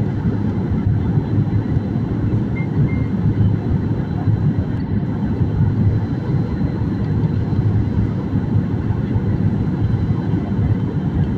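Steady low engine and air noise heard inside the cabin of an airliner in flight, with no changes or separate events.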